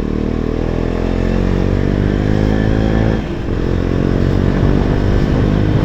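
KTM 250 Duke's single-cylinder engine through an aftermarket exhaust, accelerating under way. The pitch climbs, drops with a gear change about three seconds in, then climbs again.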